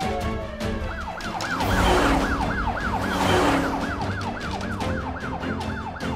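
Ambulance siren in a fast rising-and-falling yelp, about four cycles a second, starting about a second in. It plays over background music with a steady beat, and a rushing whoosh swells in the middle.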